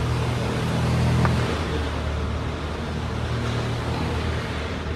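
Steady low mechanical hum of a running machine, with one faint click about a second in.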